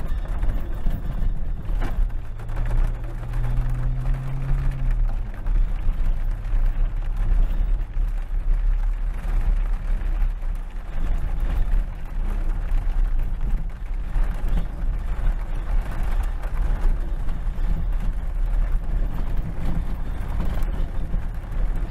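Vehicle engine running with a deep, steady rumble, with a brief rising tone a few seconds in.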